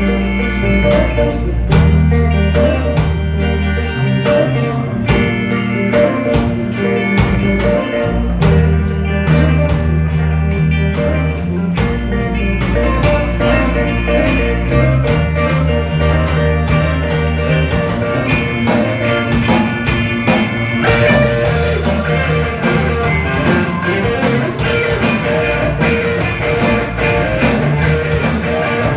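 Live band playing an instrumental blues passage: guitar over bass and drum kit, with steady bass notes and a regular drum beat.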